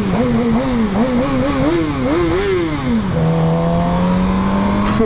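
Suzuki GSX-R600's inline-four engine on the move, its pitch climbing and dropping in quick repeated throttle swings, about two a second, then from about three seconds in holding a steady, slowly rising note. Wind rushes over the microphone throughout.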